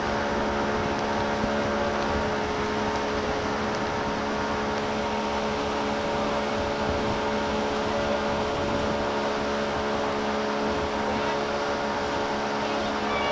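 Motorboat engine running steadily at cruising speed, an even hum that does not change, over the rush of wind and churning water from the wake.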